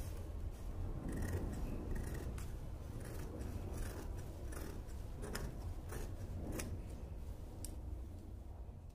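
Large scissors cutting through printed dress fabric, a run of irregular crisp snips as the blades close through the cloth, thinning out near the end. A steady low hum runs underneath.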